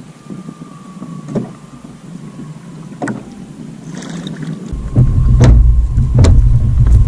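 Sounds aboard a Hobie Pro Angler fishing kayak: scattered faint knocks, then from about five seconds in a loud low rumble with sharp knocks about once a second.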